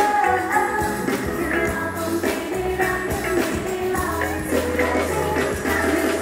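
Loud pop dance track with a steady drum beat and heavy bass, with singing over it.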